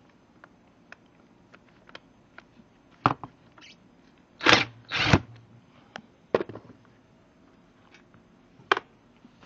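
Cordless Chicago Electric impact driver backing screws out of a metal table frame: a few short bursts, the two loudest close together about halfway through, among scattered light clicks and knocks of the tool and metal parts.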